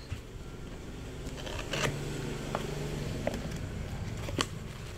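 Hands handling and opening a cardboard box: rubbing and scraping of the cardboard flaps with a few sharp clicks and taps. A low steady hum rises in the background for a second or so in the middle.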